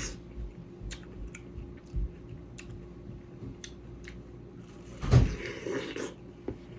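Watermelon being chewed close to the microphone, with wet crunching clicks every second or so. About five seconds in a door slams, a loud thud with a short noisy tail, the loudest sound here.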